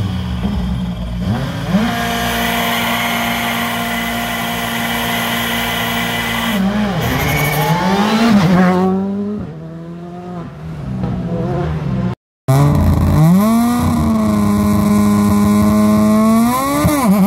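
Škoda Fabia rally car, a 1.6-litre turbo four, held at steady high revs on the start line, then accelerating hard away with the revs rising through several gears before it fades. After a cut, a second rally car, a Renault Clio, holds steady revs at the start and begins to launch near the end.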